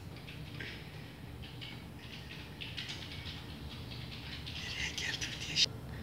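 Young kittens squeaking and scrabbling in a paper-lined cardboard box: short, high, scratchy sounds that come more thickly in the second half, with one sharper, louder one near the end, over a low steady hum.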